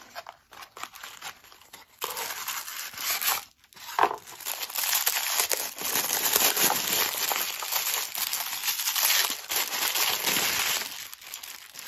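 Tissue paper crinkling and rustling as it is unwrapped by hand from a small toy figure, faint for the first couple of seconds and then steady and dense.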